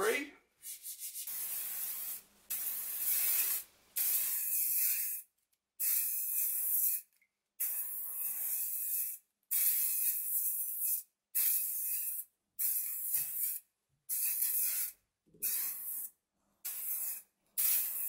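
Aerosol can of spray primer hissing in about a dozen short bursts of a second or so each, with brief pauses between passes, laying a thin first coat.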